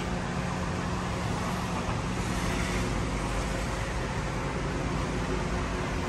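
Steady road traffic noise from a busy highway, with a constant low hum under it.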